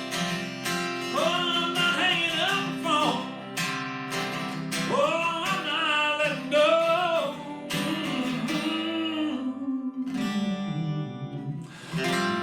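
Live acoustic guitar strumming and ringing chords under held, wordless sung phrases, the closing bars of a song; a fresh strum comes near the end.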